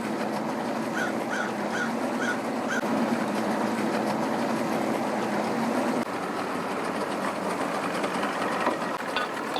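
Engines running steadily, the sound dropping a little about six seconds in, with five short, evenly spaced chirping calls from an animal, likely a bird, about a second in.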